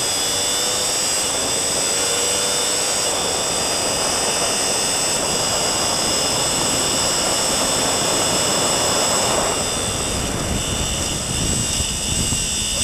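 Sport motorcycle at full throttle down a long straight, heard from an onboard camera: engine and heavy wind rush as it pulls through fifth into sixth gear at over 200 km/h. About nine and a half seconds in, the throttle closes and the wind rush drops as the bike brakes and changes down for the next corner.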